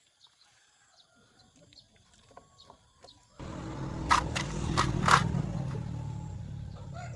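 An engine starts abruptly about three and a half seconds in and keeps running with a steady low rumble. Three sharp clicks or knocks come in its first two seconds.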